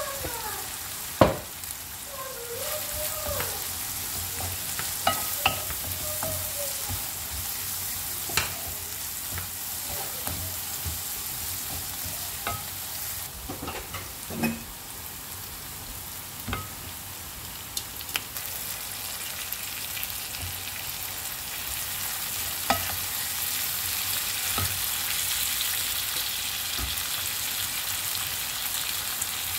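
Sliced onions frying in a nonstick pan, stirred with a wooden spatula: a steady sizzle broken by occasional sharp knocks and scrapes of the spatula against the pan. The sizzle grows louder over the last several seconds.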